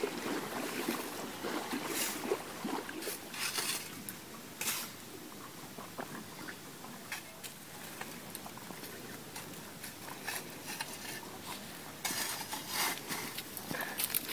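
Metal shovel scraping and scooping sand and hot coals over a sand-pit ground oven: a run of short gritty scrapes and knocks, thickest near the end.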